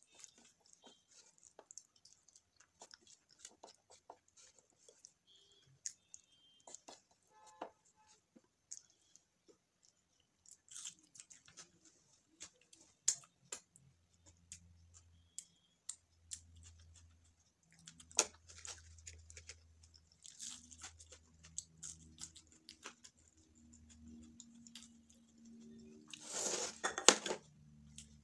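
A person eating by hand close to the microphone: soft chewing and lip smacks with many small scattered clicks, and finger licking. A louder noisy rustle comes about a second before the end.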